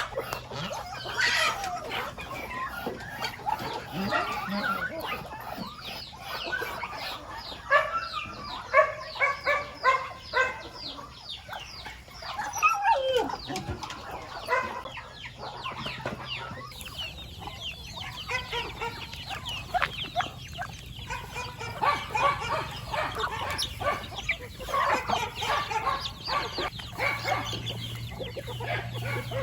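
A flock of chickens clucking, with many short calls repeating over one another.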